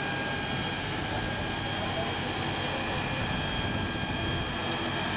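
Fire engine's motor and pump running steadily at the rear pump panel: a constant drone with a steady high whine.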